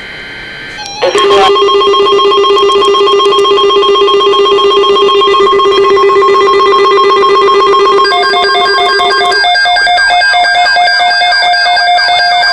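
Loud electronic tones from a weather-alert broadcast: a steady, slightly warbling chord comes in about a second in and holds. Near the end it shifts to a higher set of tones.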